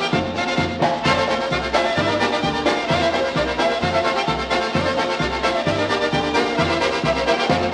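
Polka band recording of an oberek, a fast Polish folk dance in triple time: the full ensemble plays over a steady, evenly repeating bass line.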